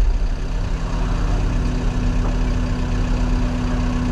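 CAT 323 excavator's diesel engine running steadily under load. A steady tone comes in about half a second in and holds.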